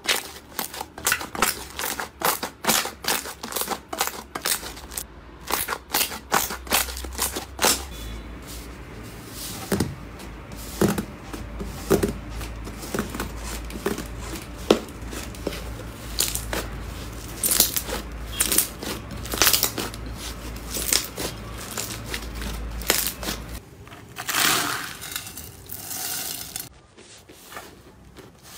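Slime being squeezed and pressed by hand. A quick run of crackling clicks gives way after several seconds to slower, separate pops.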